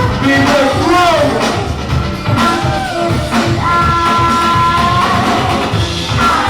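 Loud music with a heavy, steady beat and a melody line that slides up and down in pitch.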